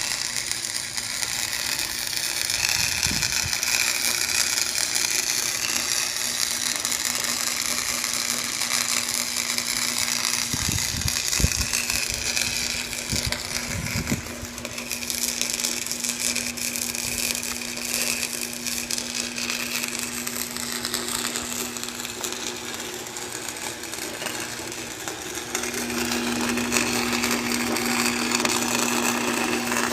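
Welder's wire-feed motor running steadily with a whir. A low hum joins about ten seconds in and grows stronger near the end. The owner suspects something stuck in the lines is making the wire feed stop.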